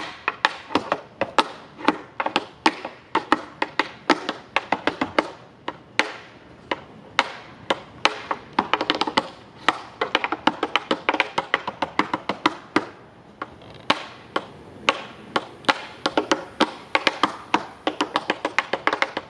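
Tap shoes striking a wooden tap board in fast, syncopated runs of sharp clicks, thinning briefly about two-thirds of the way through and then coming thick again. Under them a jazz trio of drums, upright bass and guitar plays a blues.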